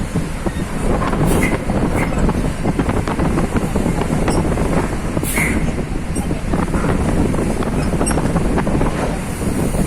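Heavy trucks' diesel engines rumbling steadily, with scattered short clanks and knocks.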